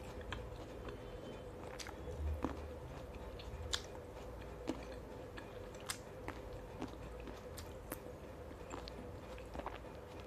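Close-miked mouth sounds of someone chewing fresh fruit, with irregular sharp wet clicks and crunches. A faint steady hum runs underneath.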